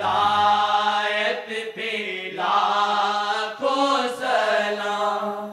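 Voices singing a naat, an Urdu devotional song praising the Prophet, in long, drawn-out chant-like notes that change pitch every second or so.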